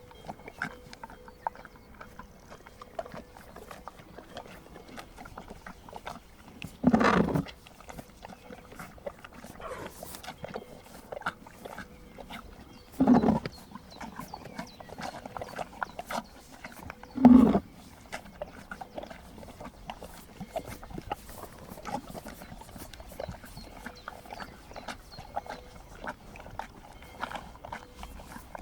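Horses and donkeys at a salt lick: three short, loud snorts, about seven seconds in and again near thirteen and seventeen seconds, over a run of faint small clicks and ticks.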